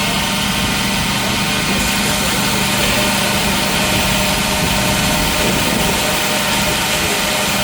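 Steady, continuous roar of running forge-shop equipment, with a steady hum underneath.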